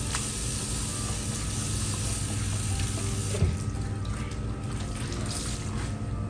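Tap water running into a ceramic bathroom sink while a wet microfibre cloth is rinsed and squeezed under the stream, with one sharp knock about three and a half seconds in.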